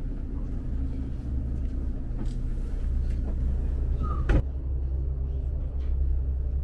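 Steady low engine rumble, with one loud thump a little past four seconds in.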